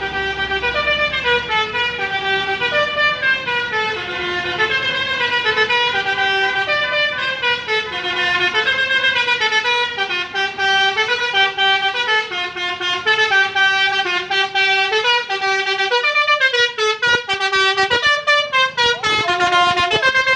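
Intercity bus's multi-tone telolet horn playing a rapid tune of short notes that step up and down in pitch, going on without a break.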